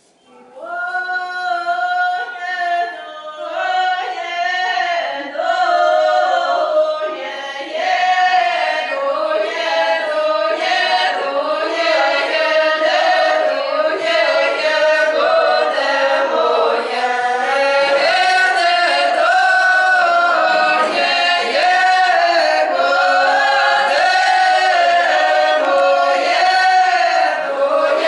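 Mixed folk choir of men's and women's voices singing a Russian round-dance (khorovod) song unaccompanied, starting together about half a second in and getting fuller around eight seconds in.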